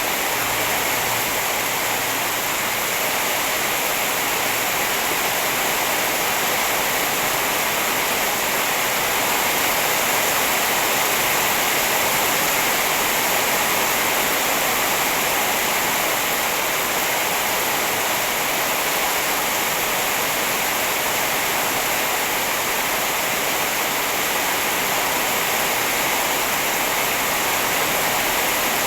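Steady heavy rain, an even hiss with no single drops standing out.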